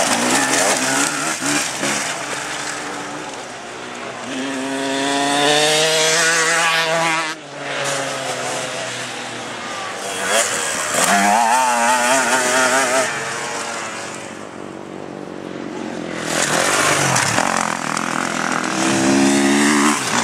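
Enduro dirt-bike engines revving hard as riders pass close by, in three loud passes. The pitch rises and falls through the gears and throttle.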